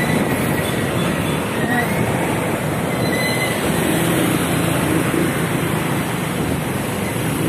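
Steady rumble of heavy road traffic heard from a moving motorcycle, with a city bus's engine running close alongside. A few faint, brief high squeals rise above it.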